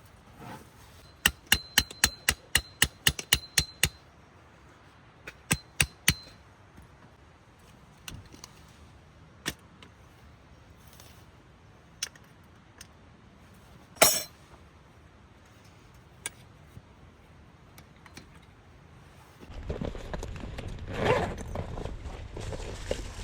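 A run of about ten quick, sharp metallic taps with a faint high ringing, then a few more taps and scattered clicks and clinks. Near the end comes a rustling, shuffling noise.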